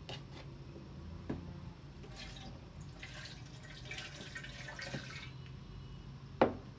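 Water poured from a plastic jug splashing onto a waterproof motorcycle glove for a few seconds, a test of whether it keeps the paper inside dry. Near the end there is a sharp knock as the jug is set down on the wooden table.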